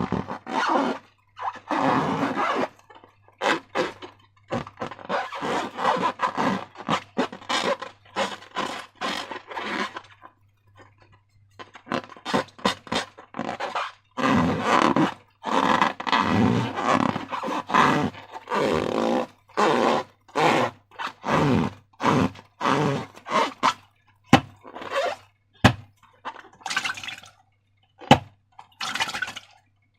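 Slime being worked by hand: irregular wet squelching and scraping, with a few sharp clicks near the end.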